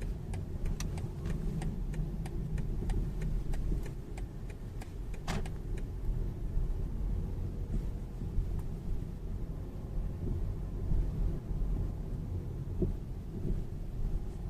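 A BMW 3 Series (G20) on the move, with a steady low road rumble and a scatter of light clicks in the first few seconds. There is a louder knock about five seconds in and another near the end. This is the kind of knocking from the front end that the owner traces to the steering gearbox.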